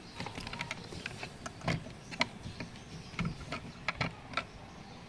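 An irregular series of small clicks and taps as hard plastic and metal parts of a car's fuel pump and filter assembly are handled and fitted together by hand.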